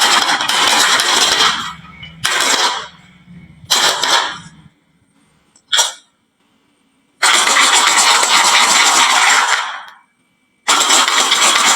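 Marbles rolling and clattering down a HABA wooden marble-run slope, in several loud runs with short gaps between them and a single sharp click a little before halfway.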